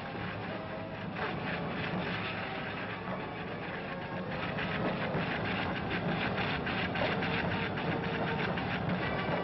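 Roar of an erupting lava fountain: a steady rushing noise with dense, rapid crackling running through it.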